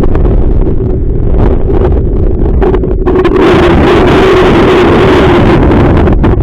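Strong gusting wind buffeting the microphone, very loud and rumbling, with a steady drone running underneath.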